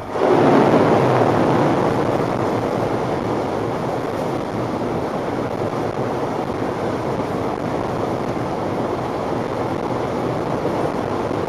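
Floodwater rushing and splashing against a car as it drives through water over the road, heard from inside the cabin: a sudden loud surge as the car enters the water, then a steady rush.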